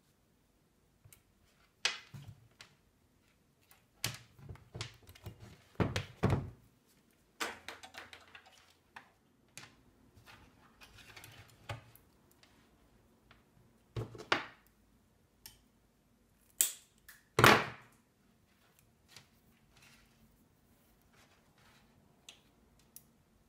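Handling noise at a wooden workbench: irregular knocks and clicks as alligator clip leads, wire and a chopstick are picked up, unclipped and set down, with a few louder knocks about three-quarters of the way in.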